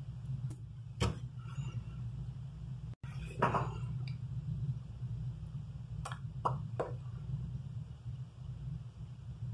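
Low steady hum of room tone, broken by a few short sharp clicks and small handling or mouth sounds. The sound cuts out for an instant about three seconds in.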